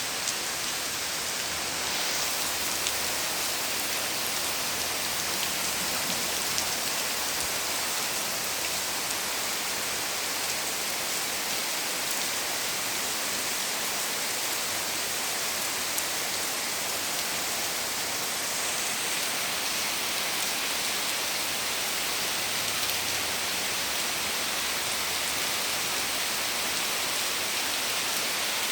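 Heavy downpour of rain falling among tall trees: a steady, dense hiss with scattered sharper drop ticks.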